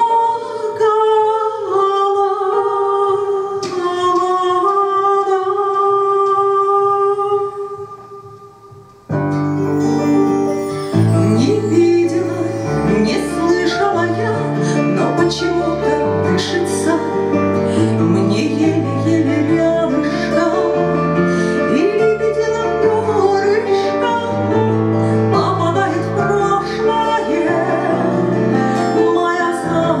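A woman sings into a microphone over a backing track played through PA speakers. She holds one long note that fades away about eight seconds in. Then the accompaniment comes back in full, with a bass line, and the song goes on.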